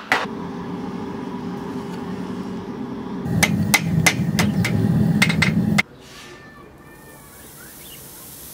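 Farrier's hammer striking a horseshoe held in tongs on an anvil: a run of sharp, ringing blows over a steady low hum, which cuts off suddenly a little over halfway through.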